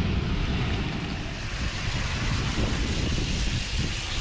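Wind buffeting the microphone, an irregular low rumble over a steady hiss of background noise.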